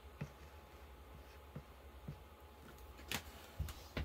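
Faint taps and small clicks of objects being handled, with a sharper click a little over three seconds in and a couple of low thumps near the end.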